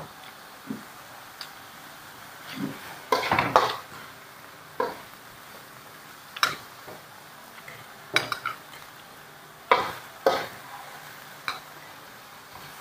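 Metal tongs knocking and scraping against a steel wok as vegetables are stir-fried, a sharp clank every second or two with a quick cluster a few seconds in, over a faint steady sizzle.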